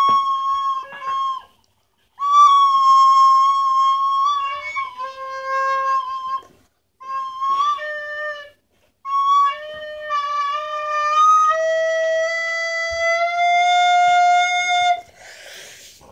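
Plastic soprano recorder played as a string of held single notes with short breaks between them, mostly in its high register, the pitch stepping up over the last few notes. A short breathy rush of air about fifteen seconds in as the playing stops.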